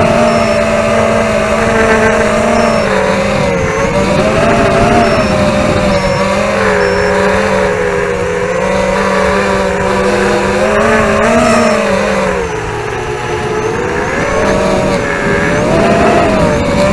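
ZMR250 racing quadcopter's DYS 2204 brushless motors spinning tri-blade props, heard from the onboard camera: a steady whine that wavers up and down in pitch with the throttle, drops about twelve seconds in and then climbs again near the end.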